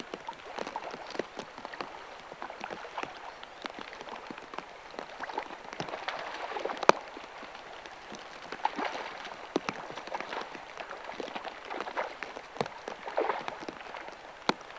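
Shallow river water running and splashing around a hooked salmon being played in close, with scattered sharp clicks and splashes. One sharp click about seven seconds in is the loudest sound.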